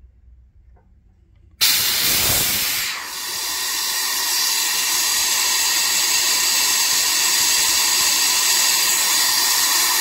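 Compressed air at about 100 PSI rushing through a quarter-inch Milton V-style quick-connect plug, its coupler and the flow-test line at about 29 and a half CFM. A loud, steady hiss starts suddenly about a second and a half in, as the shut-off ball valve is opened.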